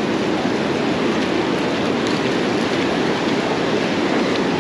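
Steady rushing noise of shallow surf washing up and over the sand at the water's edge.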